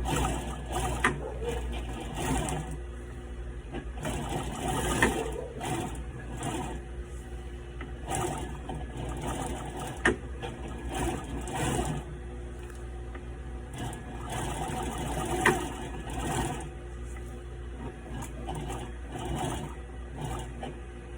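Adler 67 industrial sewing machine stitching through heavy ratchet-strap webbing in short runs that start and stop, with a few sharp clacks, over a steady low hum.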